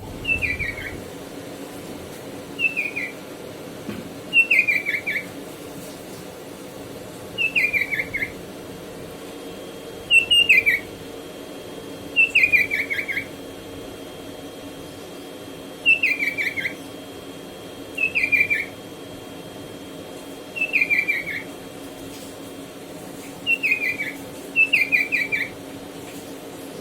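Sooty-headed bulbul (kutilang) singing: short, clear phrases of a few quick notes falling in pitch, repeated every two to three seconds, over a steady low hum.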